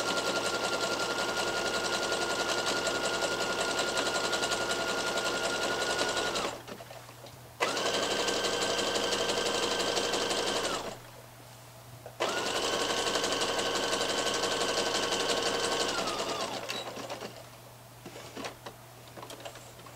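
Domestic electric sewing machine stitching a wide zigzag along the raw neck edge of jersey fabric, its motor running with a steady whine. It runs in three spells of a few seconds with short pauses between; the last slows down and stops about two-thirds of the way through, followed by faint handling clicks.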